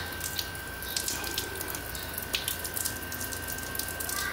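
Water poured from a bottle over the plastic control panel of a Bestway portable hot tub pump, running steadily off the housing with scattered drips and spatters as it leaks out around the button switches.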